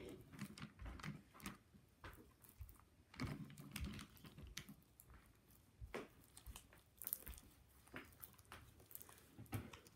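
Homemade slime being kneaded and stretched by hand, making faint, irregular sticky clicks and crackles.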